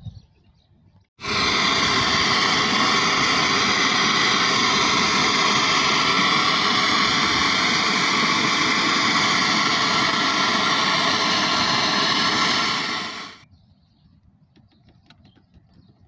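Nitrogen gas blowing through the AC outdoor unit's copper refrigerant pipes to flush out a blockage: a loud, steady hiss that starts suddenly about a second in and dies away after about twelve seconds.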